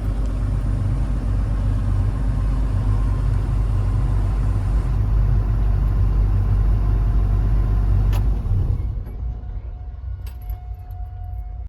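Heavy diesel engine running steadily with a deep rumble, then easing off and quieter for the last few seconds, with a single sharp knock just before it drops. The sound cuts off suddenly at the end.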